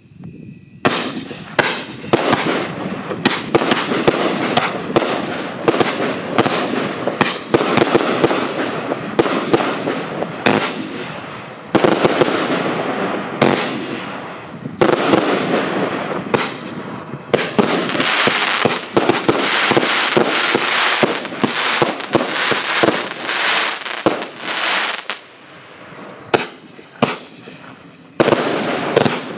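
A 'High Kick' multi-shot consumer firework cake firing: a rapid, dense barrage of shots and crackling bursts, almost without pause. The firing thins briefly near the end, then comes back heavy.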